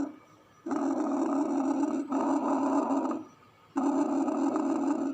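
Bronchial breath sounds heard through a stethoscope: loud air rushing through the trachea and main bronchi in runs of one to one and a half seconds, separated by short pauses. This is the normal breath sound over the trachea, a sign of a healthy lung.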